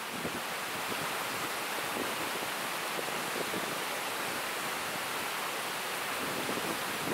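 Shallow mountain river flowing over rocks: a steady rush of water.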